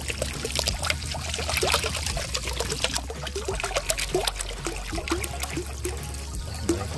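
Water poured from a plastic bottle into a metal wok of coconut milk and spices, splashing and trickling, with the bottle gurgling in short rising glugs as air bubbles back in.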